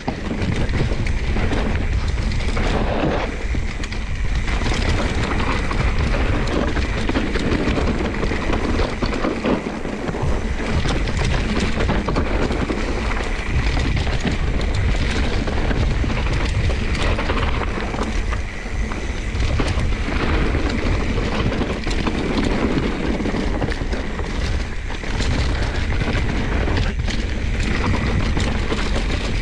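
Mountain bike riding downhill over rough trail: wind buffeting the rider's camera microphone in a steady low rumble, with frequent knocks and rattles from the bike over the rough ground.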